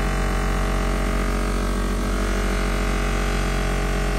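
Electric bench buffer running with a steady hum, its spinning buffing wheel pressed against a steel club hammer head during the final mirror-polishing stage.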